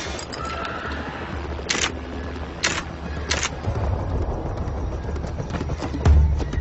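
Camera shutter clicking three times, sharp and short, over a low rumble. The rumble swells toward the end, with a deep boom about six seconds in.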